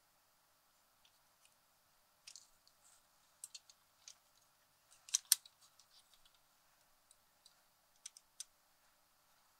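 Light clicks and small rattles of a Tascam 112mk2 cassette transport mechanism being handled and turned over by hand, its metal and plastic parts knocking together, with the loudest cluster about five seconds in.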